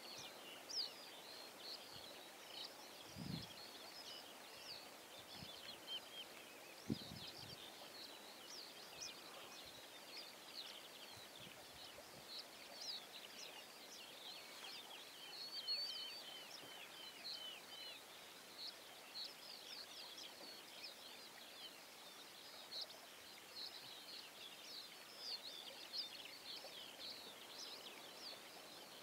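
Faint, continuous chorus of many small birds chirping, short high notes overlapping one another, with a few soft low thuds in the first few seconds.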